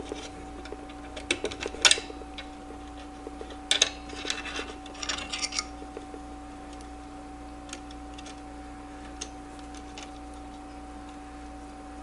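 Small plastic parts of a CPU cooler fan and its wiring clicking and rattling as they are handled, in two short clusters about two seconds in and again around four to five seconds, over a steady faint hum.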